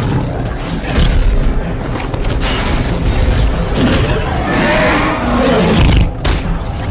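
Film soundtrack of a dinosaur fight: deep booming impacts and rumble over orchestral music, with a large dinosaur roaring about two-thirds of the way through.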